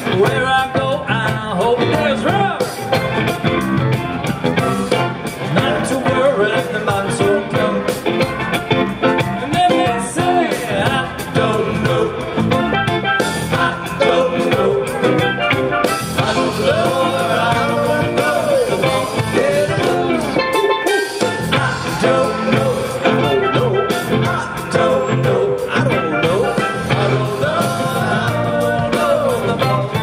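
Live band playing amplified music, with electric guitar and a drum kit keeping a steady beat.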